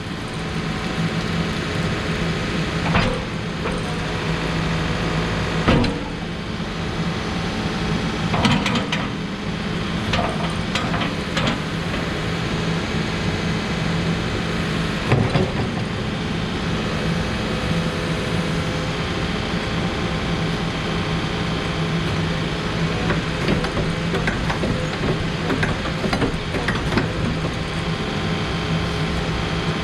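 Case 590 Super N backhoe loader's diesel engine running steadily under work, with scattered clunks and knocks from the machine as it is operated.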